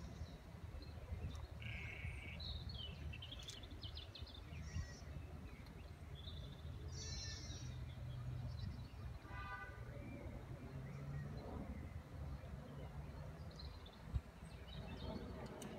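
Common ravens giving scattered short harsh calls while mobbing a perched Eurasian eagle-owl, over a steady low rumble.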